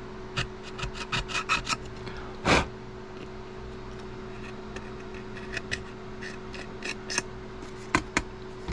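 Small flathead screwdriver scraping old adhesive off a cell phone's frame in short, irregular scratchy strokes, with one louder scrape about two and a half seconds in.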